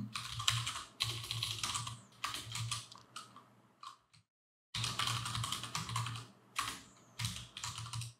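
Typing on a computer keyboard: quick runs of key clicks entering a line of code. There is a short pause about halfway through.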